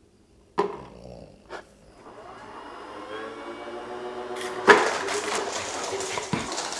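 A tennis ball dropped into the funnel of a homemade Raspberry Pi Pico ball launcher lands with a knock. The launcher's DC motors then whir with a slowly rising whine. About two-thirds in comes a loud thump, followed by a steady noisy rush.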